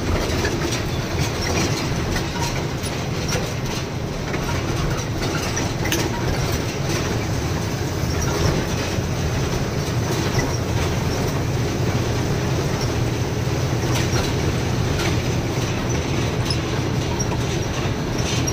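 Goods truck on the move, heard from inside the cab: a steady low engine and road rumble with many small irregular rattles.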